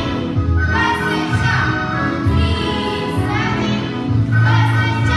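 Recorded music: a song with singing voices over a bass line that changes note about once a second.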